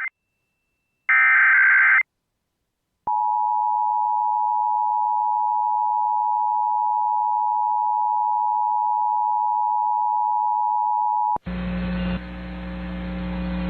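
Emergency Alert System signalling: a harsh digital data burst of the SAME header lasting about a second, a short silence, then the EAS two-tone attention signal held steady for about eight seconds. The tone cuts off abruptly into a low hum and hiss.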